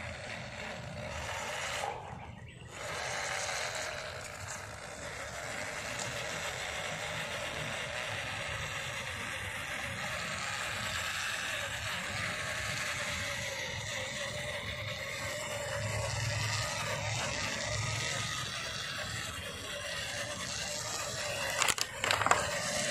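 An MN99S 1:12 scale RC crawler's small electric motor and gearbox whining, the pitch wavering with throttle, along with tyre and scrape noise on dirt. A few sharp clicks come near the end.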